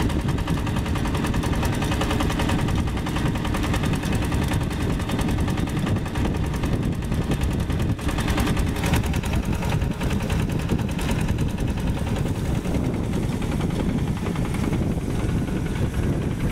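Yanmar two-wheel hand tractor's single-cylinder diesel engine running under load while its rotary tiller works dry soil: a rapid, even chugging clatter.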